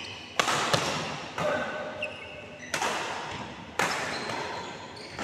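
Badminton rackets striking a shuttlecock in a rally: about six sharp hits, about one a second, each ringing briefly in a large hall.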